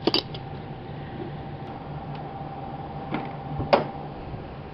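Handling noise: a short sharp crackle at the start, then two knocks about three seconds in, the second the louder, over a steady low hum with a thin high tone.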